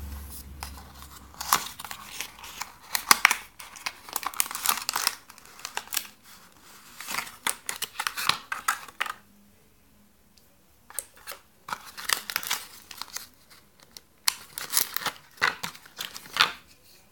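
Cardboard box and clear plastic packaging crinkling and rustling as a small product is unpacked by hand. It comes in four spells of crackling, with a longer pause in the middle.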